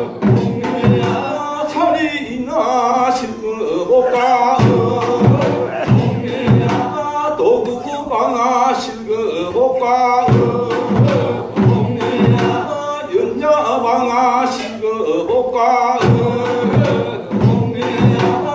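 A group of men singing a Korean folk work song together, with sharp knocks beating time throughout.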